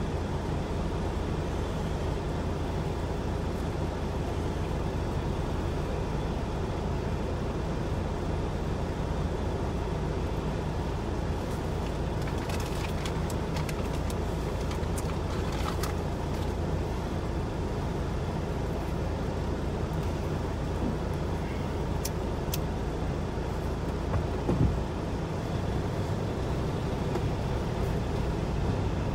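Steady low vehicle engine rumble heard from inside a car's cabin, with a few light clicks midway and a single thump near the end.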